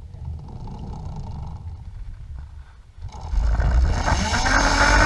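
Zip line trolley setting off down the cable: about three seconds in, a loud rush of wind on the microphone sets in, and from about a second later the trolley's pulleys whine with a pitch that keeps rising as it gains speed.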